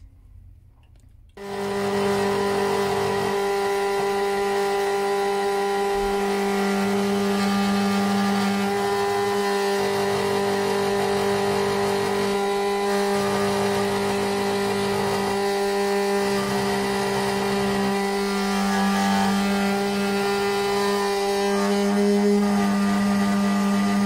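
SEC-E9 automatic key cutting machine starting about a second in and then running steadily, its cutter motor giving a steady pitched whir while it mills the second side of a car key blade.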